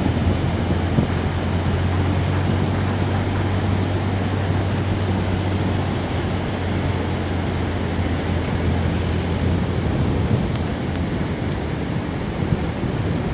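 Sea surf washing onto the beach as a steady rush of noise, with wind on the microphone adding a low rumble that fades about nine or ten seconds in.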